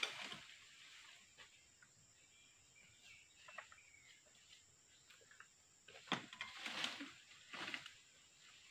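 A long-poled oil palm harvesting sickle rustles and scrapes among the palm's fronds in a few short bursts, the loudest about six to eight seconds in. Faint bird chirps and a thin steady insect whine sit behind it.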